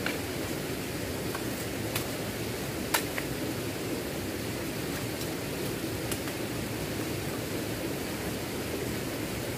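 Steady rushing noise with a few short sharp clicks, the loudest about three seconds in.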